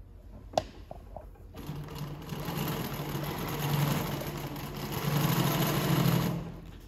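Consew 146RB-1A-1 industrial walking-foot zigzag lockstitch sewing machine stitching a zigzag seam through vinyl. A few clicks come first; then the machine runs steadily for about four and a half seconds, swelling twice in loudness, and stops near the end.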